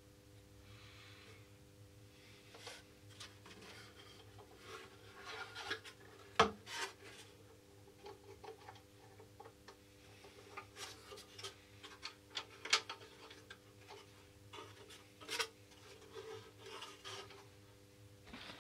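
Handling noise of a model aircraft's plywood motor pod and wing-root section as they are turned over in the hands: light rubbing and scraping with scattered small clicks and knocks. One sharp knock about six seconds in is the loudest.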